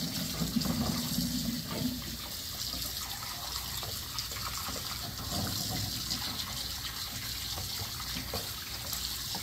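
Kitchen faucet running in a steady stream into a plastic container of walleye fillets in a stainless steel sink, with small splashes as hands swish the fillets to rinse them.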